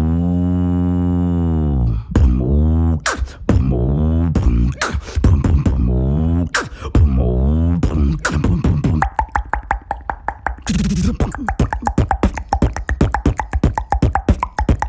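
Beatboxer imitating a cow: a long, low moo of about two seconds opens, followed by a beatbox rhythm mixing pitched, moo-like vocal calls with drum sounds. About nine seconds in, it turns into a rapid run of clicks and snare hits.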